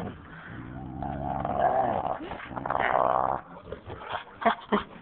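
Dog play-growling in a long drawn-out growl that wavers in pitch, then a few short sharp sounds near the end.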